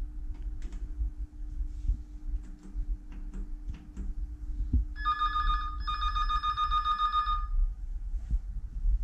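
Light clicks of keys being pressed on a telephone operator's console, then about five seconds in a telephone rings with an electronic trill for about two and a half seconds, broken briefly near its start. A steady low hum runs underneath.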